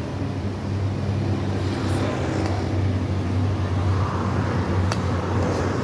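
Steady low mechanical hum from running machinery, with a short sharp click about five seconds in.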